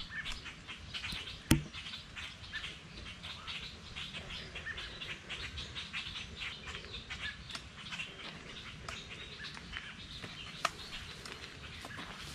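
Footsteps crunching on a gravel path, with songbirds chirping around them. There is one sharp knock about a second and a half in.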